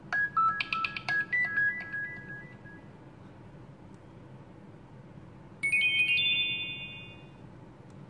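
Nokia 6700 Slide previewing two of its built-in message alert tones through its loudspeaker: a quick run of short bright notes lasting about two seconds, then, after a pause, a chime of several notes struck in fast succession that rings on and fades.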